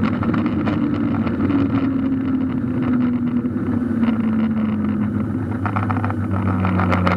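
Boeing 737-800 cabin noise: the CFM56 engines' tone slides slowly and steadily down in pitch over a steady roar, with a few light rattles.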